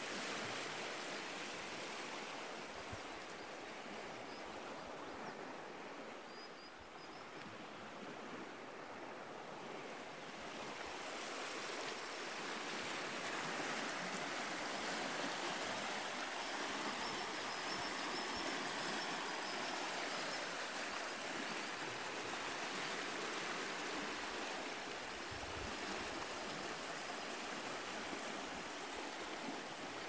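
Shallow, fast river running in rapids: a steady rush of water that grows louder about twelve seconds in.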